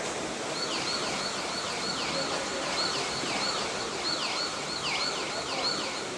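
Underwater hockey referee's electronic sounder heard through the water, a repeating falling whoop about three times a second over a steady water hiss. It signals a stoppage of play.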